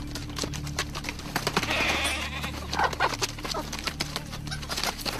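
Chickens in a coop squawking in alarm, with scratchy scrabbling and rustling, as army ants swarm over them. A low steady drone runs underneath.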